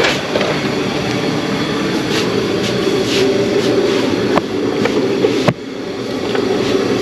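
Steady mechanical rumbling noise, with two sharp clicks about four and a half and five and a half seconds in. At the second click the noise drops suddenly, then builds back up.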